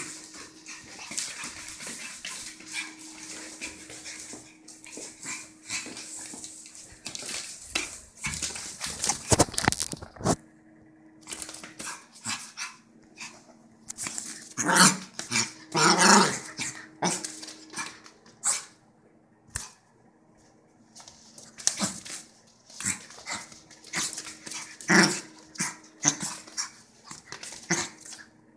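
Maltese puppy barking and yipping in short, irregular bursts while playing excitedly, loudest about halfway through.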